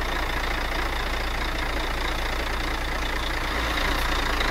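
Volvo FH truck's diesel engine idling steadily.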